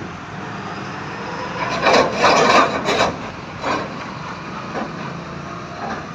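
Steady heavy road-traffic noise from passing vehicles, with a loud cluster of sudden knocks about two to three seconds in and a shorter one near four seconds.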